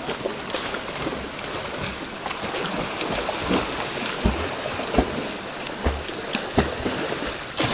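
Boys swimming in a shallow river pool: irregular splashing from their strokes and kicks over the steady rush of flowing water.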